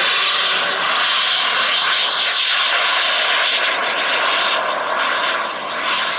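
RC model T-33's miniature turbine jet engine running at takeoff power as the model rolls down the runway and lifts off: a loud, steady jet rush with a high whine.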